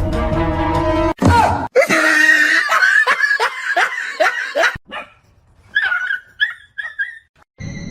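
Dog yipping: a quick run of short yelps that drop in pitch, then after a pause about four more.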